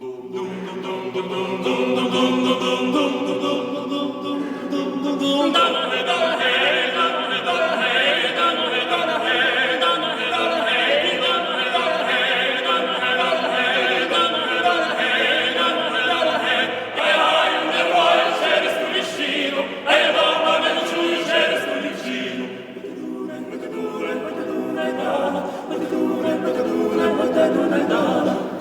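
A choir singing, quieter at first and fuller from about five seconds in.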